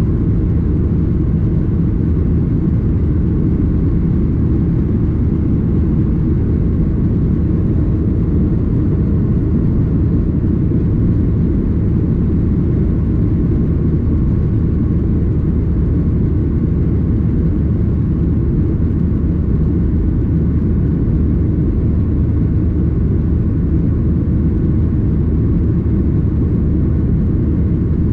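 Boeing 737-800 cabin noise: a steady, deep rumble of the engines and airflow heard from inside the cabin, unchanging in level.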